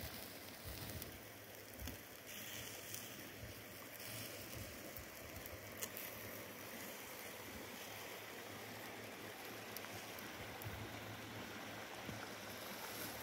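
Faint, steady rush of water from a thin mountain waterfall and its rocky stream, with a few light clicks.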